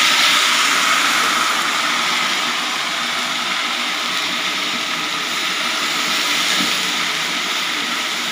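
Mint leaves and chopped onion frying in hot oil in a large aluminium pot, a loud, steady sizzle. It is loudest at the start, just after the mint goes in, and eases off a little.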